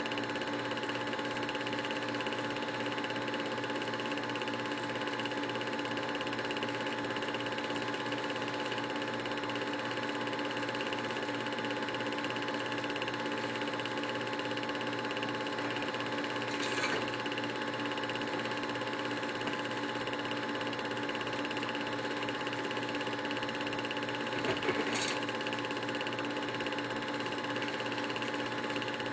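Film projector running: a steady mechanical whirr with a fixed hum of several tones, with a faint click about 17 seconds in and another around 25 seconds.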